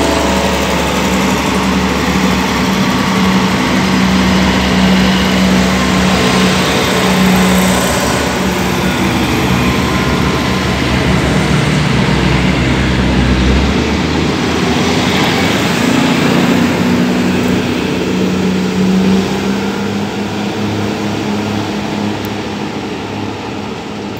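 Diesel multiple-unit passenger train pulling out of the station. Its underfloor diesel engines run with a steady hum and the wheels rumble on the rails. The sound fades over the last few seconds as the train moves away.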